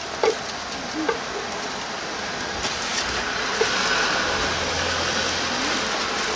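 Steady background rumble and hiss, with a low hum swelling for a couple of seconds past the middle. Over it come a few soft knocks and scrapes of a knife and gloved hand on a wooden cutting board as sliced sundae is pushed into a foam takeout tray.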